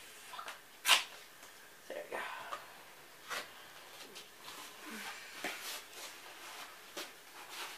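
Duct tape and cardboard being handled: scattered crinkling and rustling, with one sharp, loud rasp about a second in.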